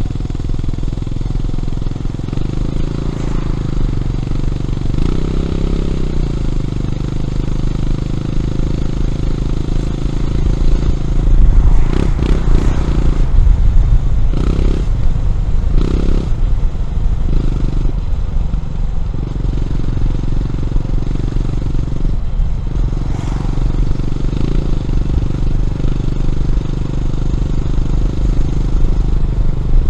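Honda CB400SS air-cooled single-cylinder engine running under way through a Yamamoto A-spec aftermarket exhaust. It gets louder for a few seconds about eleven seconds in, with short drops and clattery breaks in the sound over the next several seconds.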